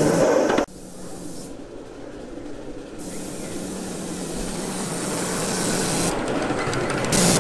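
Ride-on miniature live-steam locomotive hissing steam as it approaches, growing steadily louder. A louder sound cuts off sharply under a second in, and a brief louder hiss comes near the end.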